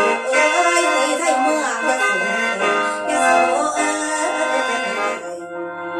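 Khaen, the Isan bamboo free-reed mouth organ, playing a lam toei melody over its own steady drone chords.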